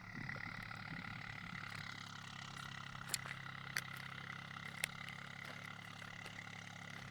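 A steady, low machine hum, engine-like, with a faint high whine above it and a few sharp clicks around the middle.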